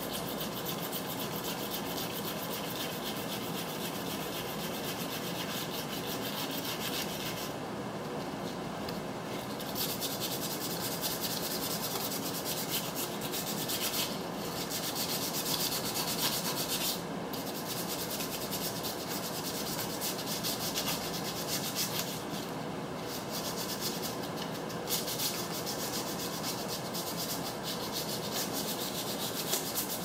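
Sandpaper rubbed by hand on a rust-stained painted steel trailer rim, a fast back-and-forth scratching that scuffs the old finish down for repainting. The scrubbing stops briefly several times, the longest pause about eight seconds in.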